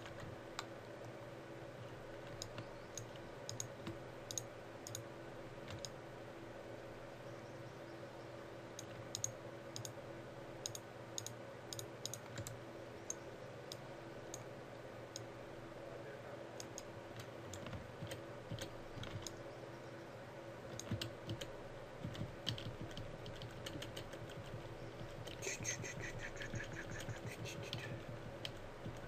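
Scattered, irregular computer mouse clicks and keyboard key presses over a steady low hum. A brief higher-pitched sound comes near the end.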